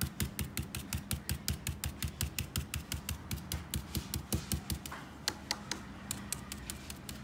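A stencil brush, nearly dry of chalk paint, pouncing through a stencil onto a tea coaster: rapid, even tapping, about six taps a second, that thins out briefly around five seconds in.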